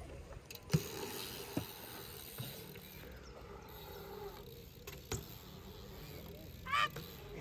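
BMX bike riding a concrete skatepark bowl: faint tyre rolling on the concrete with a few sharp knocks. A brief high wavering call comes near the end.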